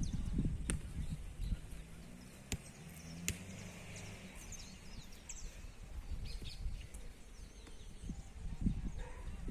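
Small birds chirping in short high calls over a low, steady outdoor rumble, with a few sharp clicks and low gusts of wind near the end.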